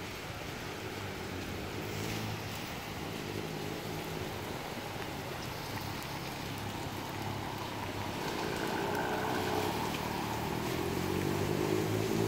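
An engine running over a steady wet hiss, getting louder and rising in pitch in the last few seconds.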